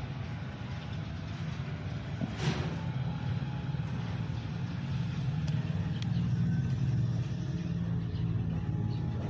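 Steady low motor hum, with a brief rustle about two and a half seconds in.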